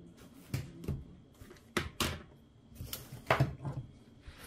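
Handling noises from crochet materials: about half a dozen short knocks and rustles as the pink yarn and crochet hook are picked up and set down.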